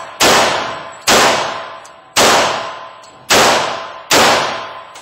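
Glock 21 Gen4 pistol in .45 ACP fired five times, about one shot a second, each shot followed by a long fading echo. These are the last rounds of the magazine, shot until empty.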